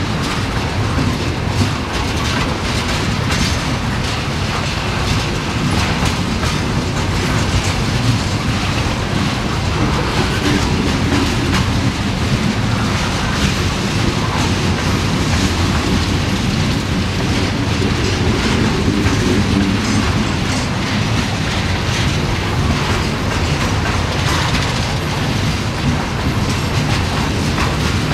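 Freight train of loaded tank cars rolling past at a grade crossing: a steady rumble of steel wheels with clicking over the rail joints.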